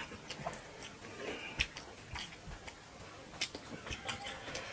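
Eating by hand: chewing, and fingers mixing rice and curry on plates, heard as scattered small irregular clicks.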